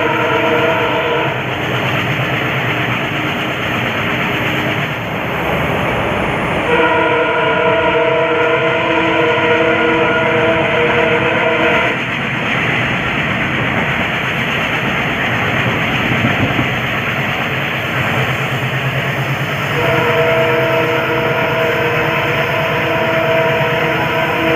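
WDM3D diesel locomotive's horn sounding in long blasts over the steady running noise of the train: one blast ending about a second in, a five-second blast in the middle, and another starting near the end.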